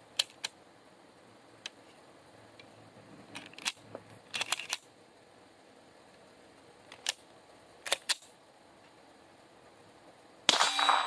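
Metallic clicks and clacks of a suppressed semi-auto pistol's slide being worked to clear a stoppage, which the shooter blames on a recoil spring too stiff for suppressed use. About half a second before the end, suppressed pistol fire through a Dead Air Mojave 9 suppressor begins, much louder than the clicks.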